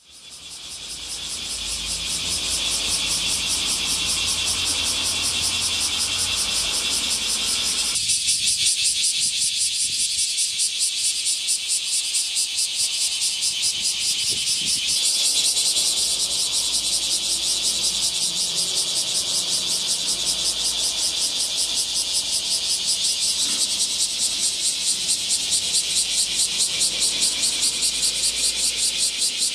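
Chorus of bear cicadas (kumazemi, Cryptotympana facialis) calling together: a dense, high, rapidly pulsing buzz that fades in over the first couple of seconds and then holds steady.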